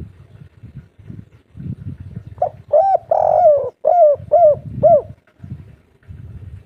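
Spotted dove cooing one song phrase about two and a half seconds in: two short notes, a longer drawn-out coo, then three short coos in quick succession. The three-note ending is the 'kuk 3' song type that keepers prize.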